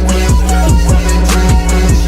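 Hip-hop backing music with a steady beat, heavy bass and drums, without vocals.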